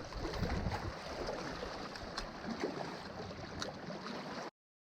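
Seawater washing and gurgling against shoreline rocks, with a few faint clicks. It cuts off abruptly to silence near the end.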